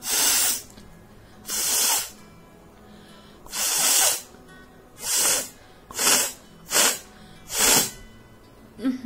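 A person's seven forceful blasts of air through the nose, about a second apart, the later ones shorter and quicker.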